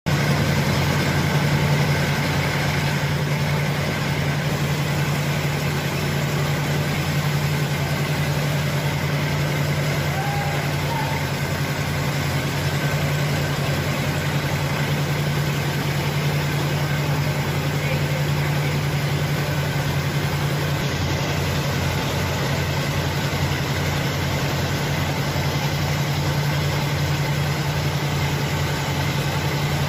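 Steady low mechanical hum of a motor or engine running at an even speed, unchanged throughout.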